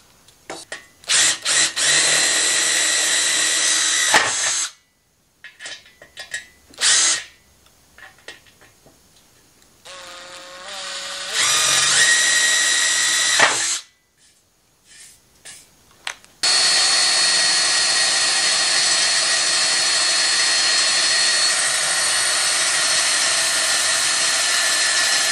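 Cordless power drill drilling holes through the steel fender to mount its bracket, in runs with a steady whine. There are a few short runs, then one long continuous run from about two-thirds of the way in.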